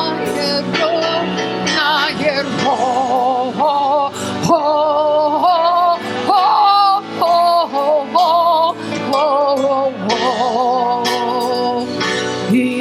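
Music: a singer holds long, wavering notes over a sustained instrumental backing.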